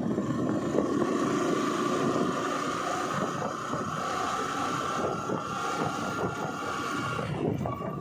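Wind buffeting the microphone over the rumble of a moving vehicle on the road. A thin whine rises slightly in pitch and cuts off about seven seconds in.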